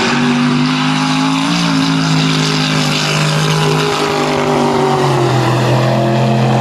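Mud truck's engine held at high revs as it plows through a mud pit, with a constant hiss of mud and water spray. The engine note rises slightly about a second and a half in, then settles lower a few seconds later.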